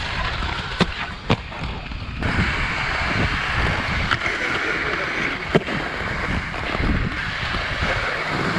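Inline skates rolling over concrete, with wind rushing on the microphone. There are several sharp clacks as the skates strike the ground and a ledge.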